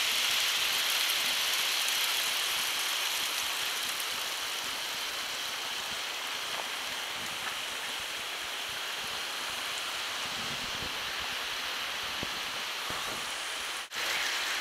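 Steady rushing of a mountain waterfall cascading down a rock cliff, growing somewhat fainter over the first several seconds, with a brief break near the end.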